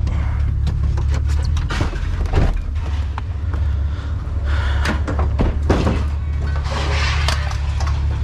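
Truck engine idling steadily, with scattered knocks and clanks throughout.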